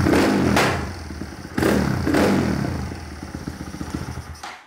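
Honda Monkey's single-cylinder engine, bored out to 181 cc with a Kitaco kit, running through an Over Racing exhaust. It is blipped twice, then falls back toward idle, and the sound stops abruptly just before the end.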